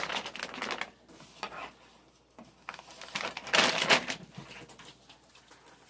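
Puppies scrabbling and rummaging about: small clicks and crinkly rustling, with a louder rustle about three and a half seconds in.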